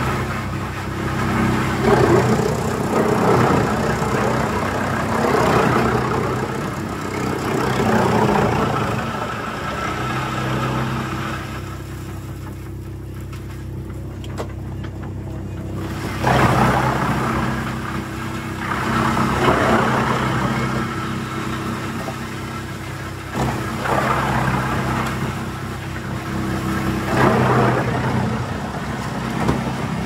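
Diesel engine of a mobile wood chipper running steadily, with repeated surges of rough noise every few seconds as waste logs are fed in and chipped. There is a calmer stretch near the middle where only the engine is heard.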